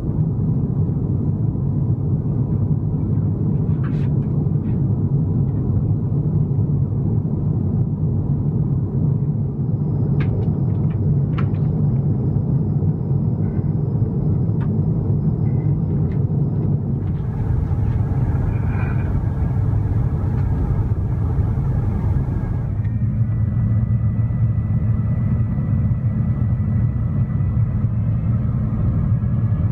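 Airbus A350 cabin noise heard from a window seat by the wing: the steady low rumble of the Rolls-Royce Trent XWB engines and airflow. The sound changes abruptly about two-thirds of the way through, when a high hiss joins it, and again a few seconds later. A few faint clicks come early on.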